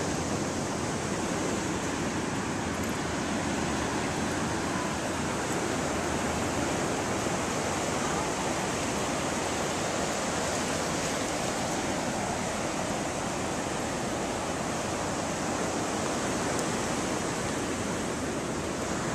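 Ocean surf breaking and washing up the beach: a steady rushing.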